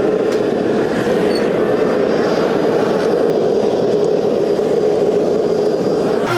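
Blacksmith's forge running: a steady, loud rushing noise from the fire as the steel heats. It cuts off suddenly at the very end.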